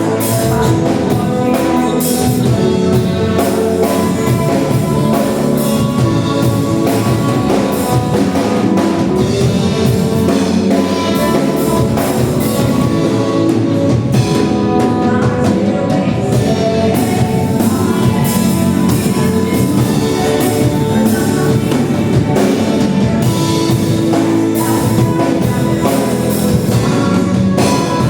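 Worship band music: drum kit, guitar and singing, playing steadily throughout.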